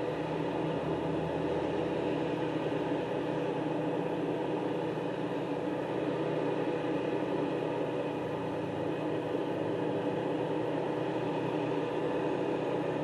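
A steady machine hum with a few held tones, unchanging throughout.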